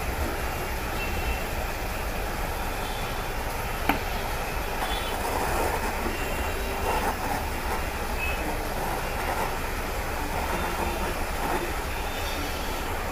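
Jeweller's soldering torch flame hissing steadily while silver rings are heated and soldered onto a bangle, with one sharp click about four seconds in.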